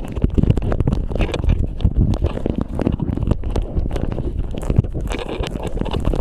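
Rumbling wind and rubbing noise on a body-worn phone's microphone, with irregular scrapes and knocks.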